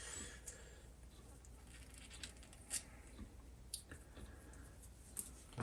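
Faint, scattered light clicks and taps of small metal parts and tools being handled while a jukebox mechanism is worked apart, over a low steady background.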